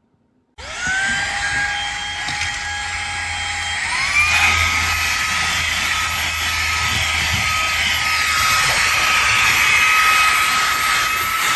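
Fanttik Slim V8 Apex cordless handheld vacuum's motor switching on about half a second in and whining up to speed, then stepping up to a higher, louder whine about four seconds in as it goes to its higher power setting.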